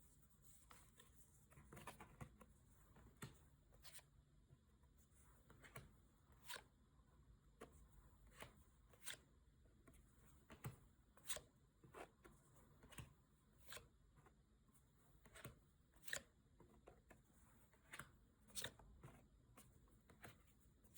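Pokémon trading cards being flipped through by hand, one after another: a run of soft, irregular clicks and snaps of card on card, about one or two a second.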